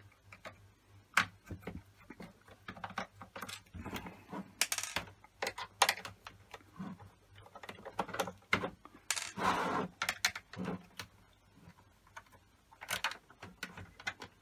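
Irregular small clicks and taps with a few brief scrapes: a Torx T8 screwdriver and small screws handled against the plastic casing of an original PlayStation 4 while its back screws are undone.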